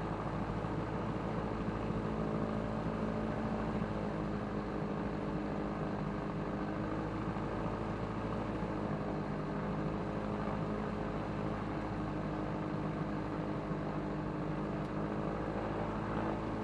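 Light aircraft's carburetted piston engine and propeller held at about 1700 rpm for the pre-takeoff run-up, heard from inside the cockpit: a steady engine drone.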